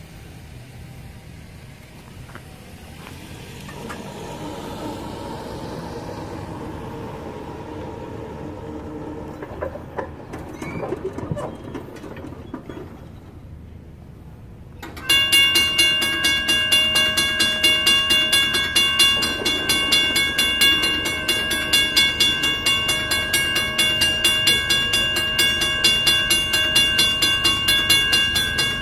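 Railroad crossing signal bell ringing in a fast, even run of about two strokes a second, starting suddenly about halfway through and louder than anything before it. Before the bell comes a quieter rumbling noise with a few sharp clicks.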